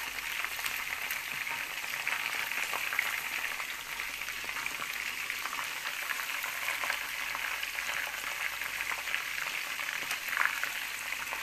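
Chicken wings deep-frying in hot oil in a pan: a steady sizzle and crackle, with one louder crackle about ten seconds in.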